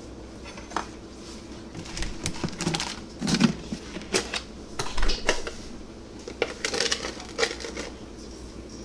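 Kitchen handling clatter: irregular clicks, knocks and rattles of utensils and plastic containers being picked up and set down on a counter, the loudest cluster about three and a half seconds in.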